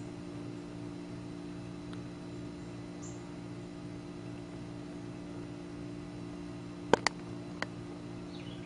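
A steady low hum, with three sharp clicks close together about seven seconds in and a few faint high chirps.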